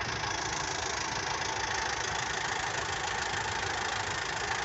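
An engine idling steadily, with a steady hiss of heavy rain over it.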